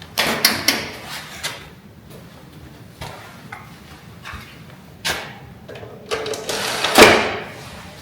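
Irregular clattering knocks and short scrapes of hard parts being handled and set in place. The loudest knock comes about seven seconds in.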